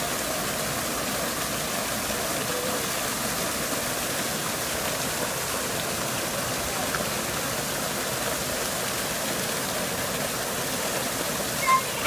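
Small waterfall pouring into a koi pond: a steady, even rush of falling and splashing water. A brief high-pitched sound stands out near the end.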